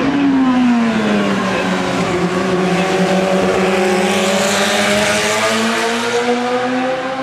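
Historic Formula Junior single-seater racing car's engine passing close at speed. Its note drops in pitch in the first second, then climbs again from about five seconds in as it pulls away, loudest around four to five seconds in.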